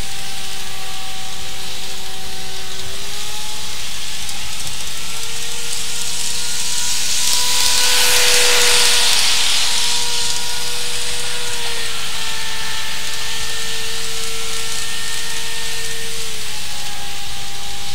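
N-scale model train running on its track under computer motor control: steady high-pitched tones stepping up and down in pitch every few seconds, over a constant hiss. The hiss of wheels on rail swells as the train passes close about eight seconds in, then fades.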